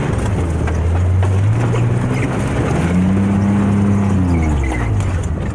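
Logging truck engine revving as it drives off-road: the pitch climbs about a second and a half in, holds, then drops back down near the end.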